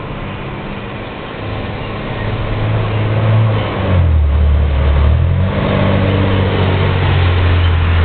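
Rear-loader garbage truck's diesel engine running and getting louder as it approaches. About four seconds in, its pitch drops low for a second and a half, then it settles into a steady, louder hum.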